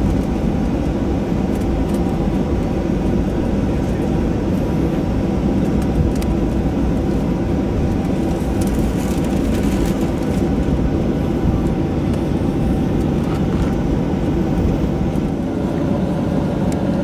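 Cabin noise of a Boeing 737-800 taxiing, heard beside its left-hand CFM56-7B engine: a steady low rumble with a faint steady whine from the engine at taxi power.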